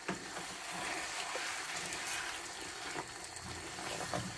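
Wooden spoon stirring a simmering beef stew in a stainless steel pan, over a steady hiss of the sauce cooking, with a few light knocks of the spoon against the pan.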